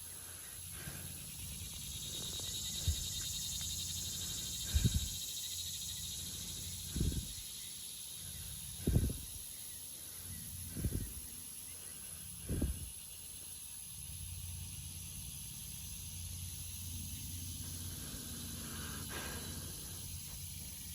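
Pasture ambience with a steady high insect drone, swelling for a few seconds near the start. Six soft, low thumps come about two seconds apart through the first half.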